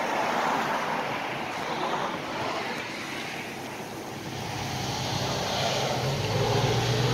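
Passing road traffic, with a vehicle's engine hum building from about halfway through and loudest near the end.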